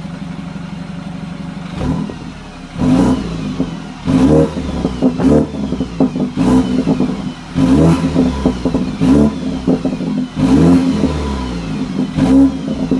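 BMW 328i's N20 2.0-litre turbocharged four-cylinder engine at the exhaust tailpipes, idling steadily for about two seconds and then revved in short blips about a second apart. This is the test run after the exhaust VANOS unit was replaced.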